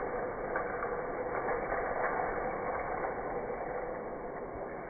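Motorised K'nex roller coaster chain lift running: the small motor and plastic chain make a steady, continuous mechanical clatter.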